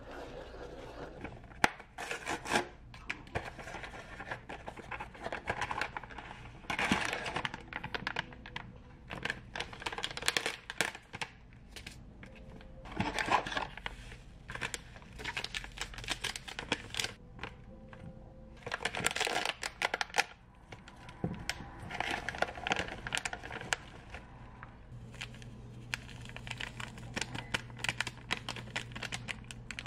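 Plastic food packets crinkling and being torn open, in irregular bursts, as the contents are emptied into a stainless steel mixing bowl.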